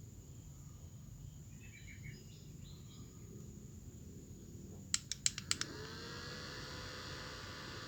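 A quick run of about five plastic button clicks. Then a mini fan's small motor spins up, its whine rising briefly before it settles into a steady hum.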